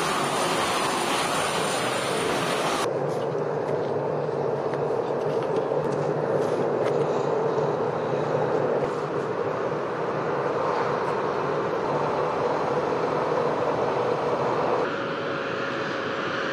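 Steady, even engine noise from heavy military vehicles and aircraft on an airfield apron. Its character changes abruptly about three seconds in and again near the end, where a faint steady whine joins it.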